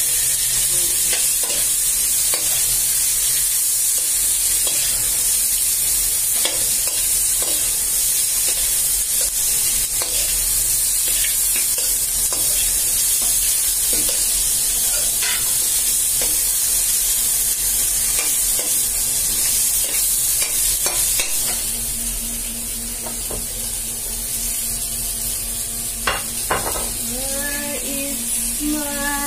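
Beef adobo sizzling as it fries in an aluminium wok, with a metal spatula scraping and knocking against the pan as it stirs. The sizzle eases off a little about two-thirds of the way through.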